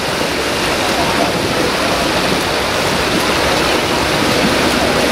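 Steady rushing splash of several swimmers swimming front crawl in a pool.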